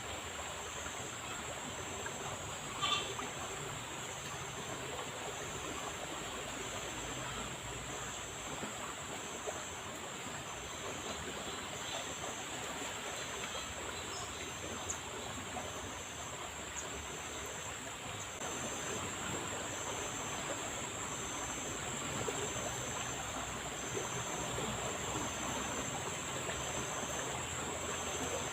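Fast-flowing river water rushing steadily, with one brief click about three seconds in.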